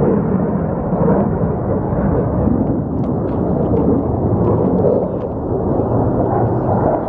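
Military fighter jet flying past, its engine noise a loud, steady, deep rumbling rush with no breaks.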